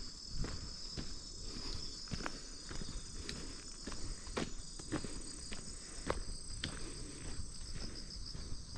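Footsteps of a person walking at a steady pace, about two steps a second, over a steady high-pitched chorus of chirping insects.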